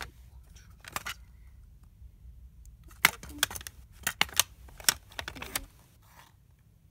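Plastic cassette tape cases clicking and clacking as they are handled and pulled from a rack: one click about a second in, then a quick run of sharp clicks from about three to five and a half seconds.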